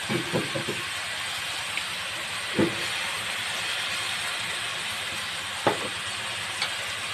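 Food sizzling steadily as it fries in a metal wok. A spatula knocks against the pan several times in the first second, then once every few seconds.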